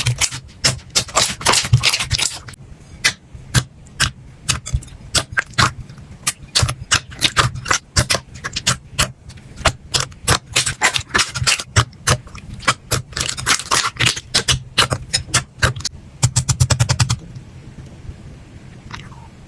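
Slime being pressed and squeezed by hand, giving off many sharp pops and clicks in irregular clusters, with a fast run of clicks about seventeen seconds in and quieter handling near the end.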